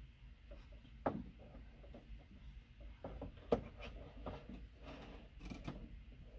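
Faint handling sounds as an LED light fixture is fitted up against the wall over its mounting plate: scattered light knocks, rubs and clicks of the housing, with a knock about a second in and a sharp click about three and a half seconds in.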